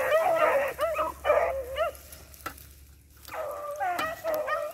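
A pack of hunting hounds baying together while running a rabbit's trail. The voices break off for about a second and a half partway through, then start up again.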